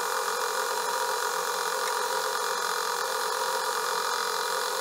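Atlas metal lathe running at a steady speed with an even whine made of several fixed tones, while a starter bit in the tailstock drill chuck is fed into the spinning aluminum blank to spot a centre hole.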